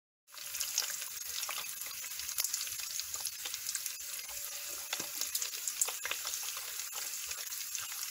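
Strips of bacon sizzling in a frying pan: a steady high hiss with frequent small pops and crackles, starting suddenly a moment in.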